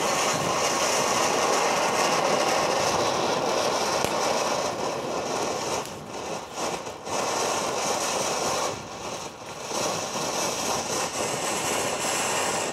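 Ground firework fountain spraying sparks with a loud, steady hiss. The hiss dips briefly several times in its second half.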